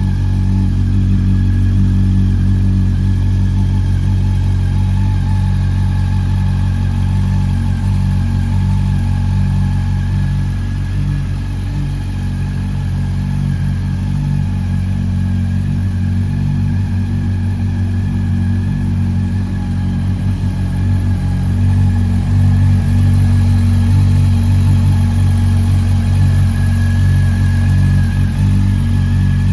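2019 Honda CB400 Super Four VTEC Revo's inline-four engine idling steadily through a Moriwaki aftermarket silencer, growing a little louder about two-thirds of the way through.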